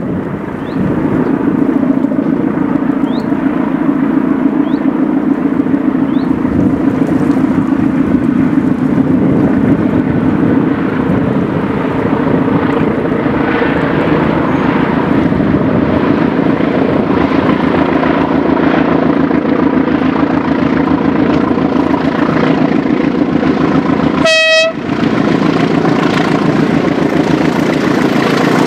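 A pair of Class 20 diesel locomotives, each with an English Electric eight-cylinder engine, run steadily under load as they haul a train up a climb. About three-quarters of the way through, the train's horn gives one short toot.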